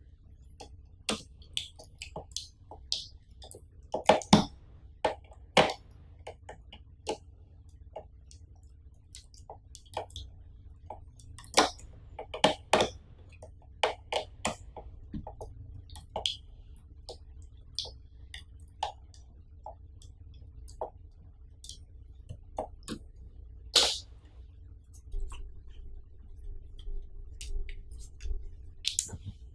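Irregular sharp clicks and knocks of plastic and metal as stand legs are screwed onto the back of a Changhong LED TV's plastic case with a small pocket-knife screwdriver. A few louder knocks come about four, twelve and twenty-four seconds in.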